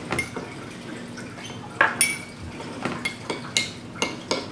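Metal spoon stirring melted soap base in a small glass measuring cup, clinking against the glass about six times at uneven intervals, each clink ringing briefly.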